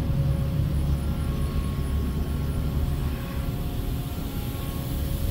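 Steady low machinery hum with a few faint steady tones above it, unchanging throughout.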